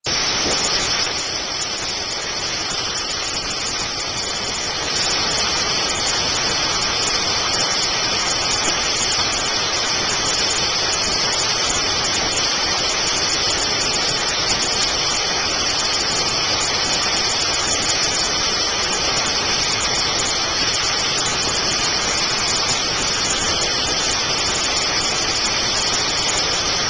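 Truck-mounted hot-water extraction cleaner working tile and grout through a hard-floor wand: a steady rushing hiss of water spray and vacuum suction, a little louder from about five seconds in.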